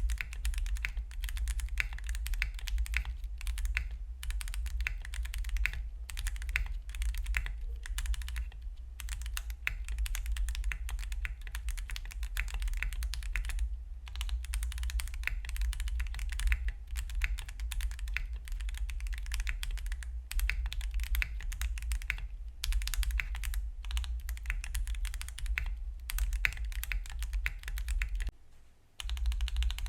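Continuous fast typing on a Wind X98 mechanical keyboard built with stock Gateron Azure Dragon linear switches, PBT keycaps and no internal foam, keys clacking in quick succession, with a brief pause near the end.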